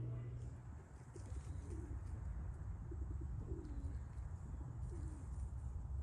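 Doves cooing: about three low, drawn-out coos a second or two apart, over a steady low rumble.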